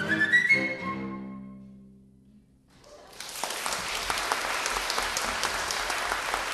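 A flute, two violins and cello play a final rising run that ends on a chord, which rings and fades away over about two seconds. After a brief hush, audience applause starts about three seconds in and carries on steadily.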